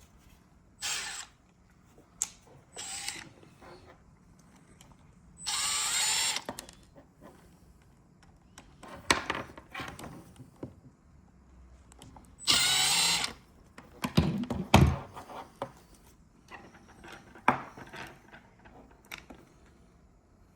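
Power drill or driver backing screws out of the leak detector's casing in short runs of about a second, the longest two about five and twelve seconds in. Between runs there are clicks and knocks of screws and parts being handled, with one low thump near the fifteen-second mark.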